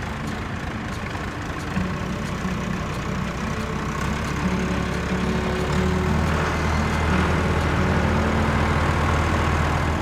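Tractor engine running steadily with a low hum, getting louder over the second half.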